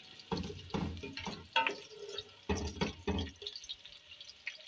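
Boneless chicken frying in desi ghee in a metal pot, crackling in irregular pops, with a wooden spatula stirring and knocking against the pot.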